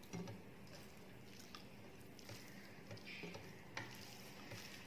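Faint eating sounds: fingers mixing rice on a plate by hand, soft squishing with a few light clicks and smacks, the sharpest just after the start and about four seconds in.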